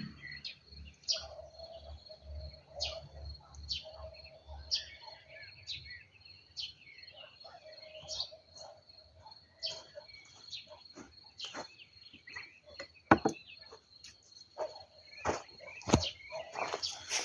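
Small birds chirping, short falling calls repeated every second or so, over a steady high-pitched insect-like trill. Several sharp knocks come in the last few seconds.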